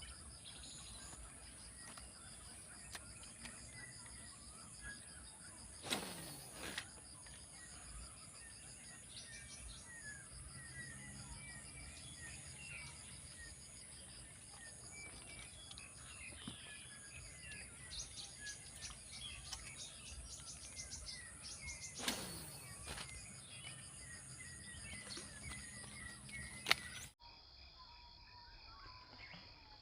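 Outdoor ambience: a steady high-pitched insect drone with scattered bird chirps, and two brief louder sounds about six seconds in and again about twenty-two seconds in. Near the end the insect drone stops abruptly and the sound drops to quieter ambience.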